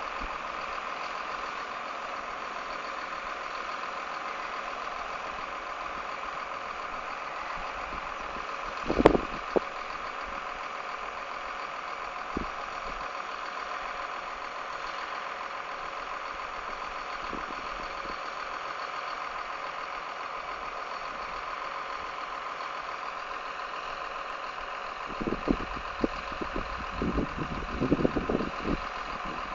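Harvest machinery running at a steady drone, with a knock about nine seconds in, another a few seconds later, and a run of irregular knocks and bumps near the end.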